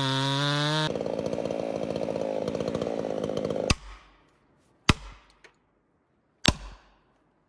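Chainsaw running at high revs in the cut, dropping to a lower, uneven idle about a second in and stopping a few seconds later. Then three sharp blows, about a second and a half apart, of an axe driving a felling wedge into the cut at the base of the tree.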